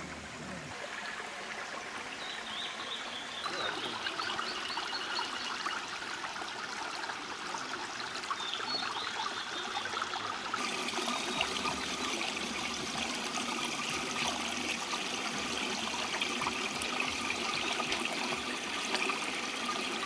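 Shallow mountain stream trickling and babbling over rocks, a steady rush of water that grows fuller twice as the view moves to a small cascade.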